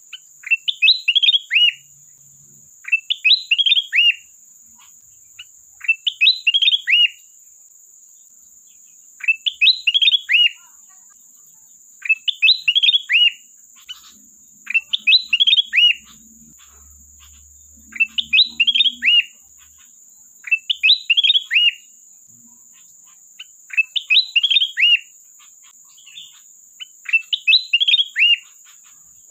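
Kutilang emas bulbul singing in lively, vigorous form: a short phrase of quick chirping notes about a second long, repeated about every three seconds.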